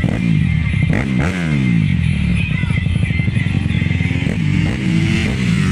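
Motorcycle engine revving, its pitch rising and falling several times as the throttle is opened and closed.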